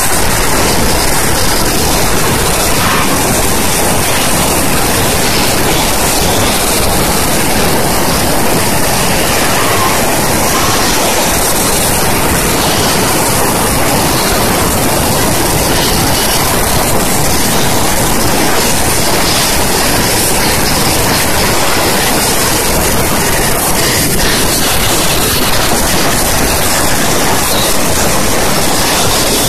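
High-pressure steam jet from a JNX-36 steam cleaner's lance hissing loudly and steadily as it blasts onto an engine cylinder head.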